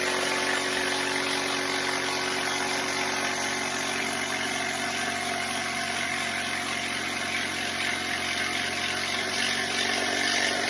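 Electric power tool motor running steadily at constant speed, a continuous whirr.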